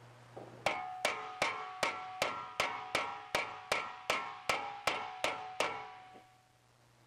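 Body hammer striking a torch-heated spot on a sheet-metal motorcycle fender resting on a wooden block: about fourteen evenly paced blows, roughly two and a half a second, each with a short metallic ring. This is heat-shrinking, pushing the hot metal into itself.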